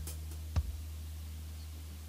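Background music fading out: a held low bass note with a single drum hit about half a second in.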